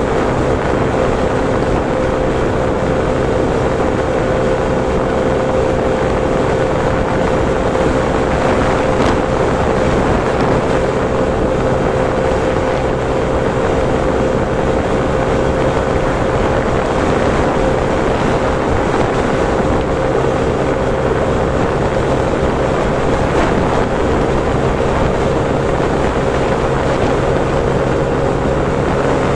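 Motorcycle engine holding a steady cruise with an unchanging drone, under a constant rush of wind on the microphone.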